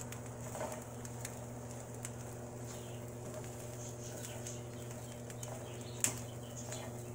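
Plastic spoon stirring roasted corn kernels in a frying pan: soft scraping and rattling of the kernels against the pan, with one sharp tap about six seconds in, over a steady low hum.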